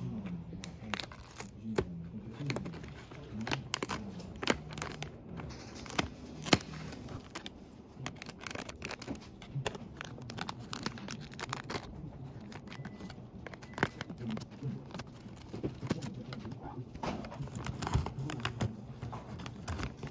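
Irregular clicks, taps and crinkling handling noises, like something being torn open and handled up close, with a faint low murmur underneath.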